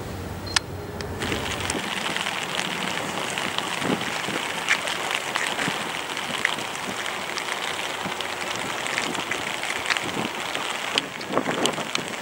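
Steady rain falling, with many scattered drops ticking close by. Before it sets in about a second in, there is a brief low hum.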